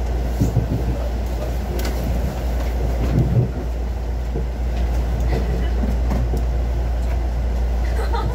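Interior noise of a Mugunghwa-ho passenger train rolling into a station: a steady low rumble and hum, with a few irregular sharp clicks from the wheels crossing rail joints and switches.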